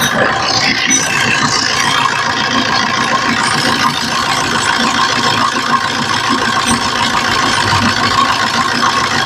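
Maruti Suzuki Swift's 1.3-litre four-cylinder diesel engine idling steadily just after a restart.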